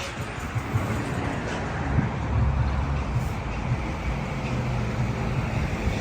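Commercial HVAC unit running with a steady low hum and rumble, sounding normal after a thermostat fix.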